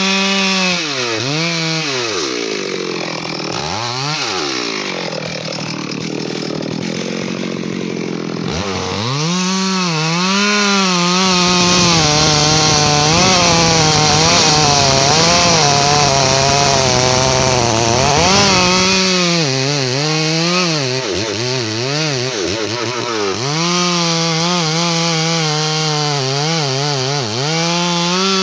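Stihl MS 382 two-stroke chainsaw cutting into a thick teak trunk. The engine's pitch drops and recovers again and again as the chain bites. For several seconds in the middle it bogs down to a lower, labouring note under load, then revs back up to a high, steady pitch near the end.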